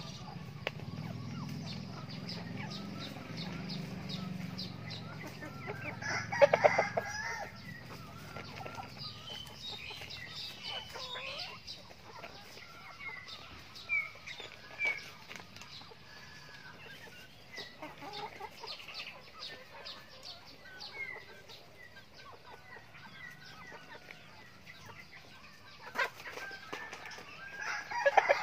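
Backyard chickens clucking, with scattered short calls from hens and roosters. A rooster crows loudly twice, about six seconds in and again near the end.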